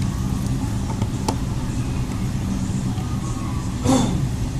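A steady low rumble, like a vehicle engine running, with a couple of light clicks and a brief louder noise near the end.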